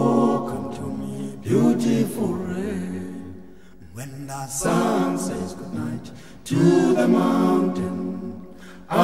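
Unaccompanied vocal music: voices singing a cappella in sustained phrases, each starting strongly and then fading away.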